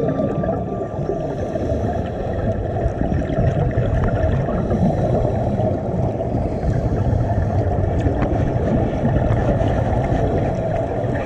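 Muffled underwater rumble and gurgling of scuba divers' exhaled regulator bubbles, heard through a GoPro's waterproof housing; the noise is steady and dull, with almost nothing above the low range.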